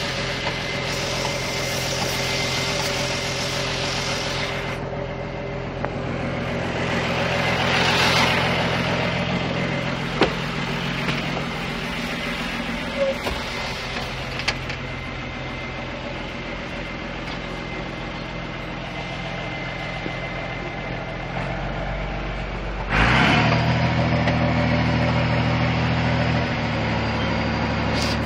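1996 Massey Ferguson 3650 tractor's diesel engine running steadily, with a few short clicks and knocks in the middle. About four-fifths of the way through, the sound turns abruptly louder and deeper.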